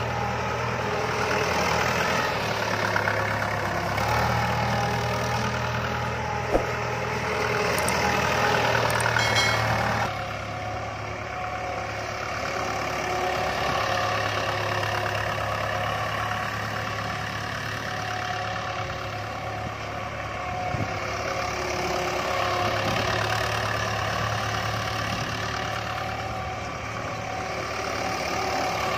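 Mahindra 575 DI tractor's four-cylinder diesel engine running steadily as the tractor drives over pearl millet heads spread out for threshing. A single sharp click comes about six and a half seconds in.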